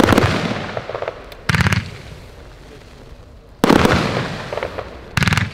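A firework battery firing aerial shots: four loud bursts about one and a half to two seconds apart, each a quick run of sharp bangs that then fades.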